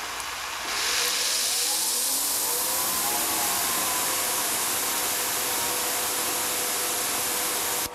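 Greenworks 2300 PSI electric pressure washer spraying through a 15-degree nozzle. There is a steady hiss of water, and about two seconds in the motor and pump whine rises in pitch as the unit slowly ramps up, then runs steadily at about 2200 PSI.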